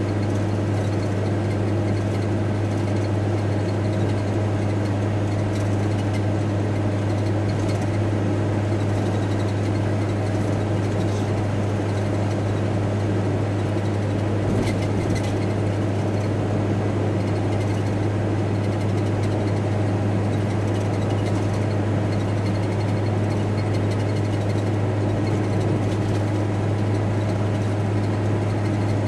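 VW T4 Transporter van driving, heard from inside the cab: a steady drone of engine and road noise with a strong low hum that does not change.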